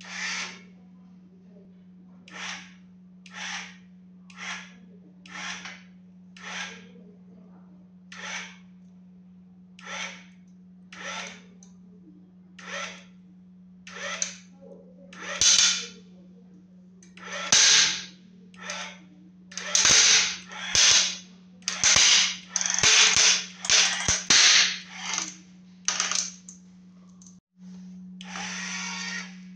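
An electric linear actuator's motor hums steadily as it forces a wooden board down under load. The board creaks and crackles about once a second, the bursts growing louder and closer together, with sharp cracking snaps in the second half as the wood splits and breaks. Near the end the sound cuts out for a moment and the hum and creaking start again.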